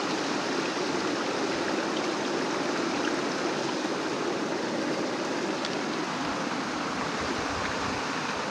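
Swollen floodwater running fast, a steady, even rushing of water swollen by heavy rain.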